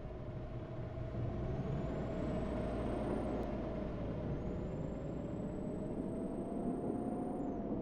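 Motor vehicle running with a dense low rumble and a steady whine whose pitch drifts slowly up and down.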